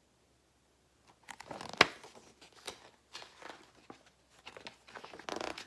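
Paper rustling as the pages of a picture book are handled and turned, with one sharp tap a little under two seconds in.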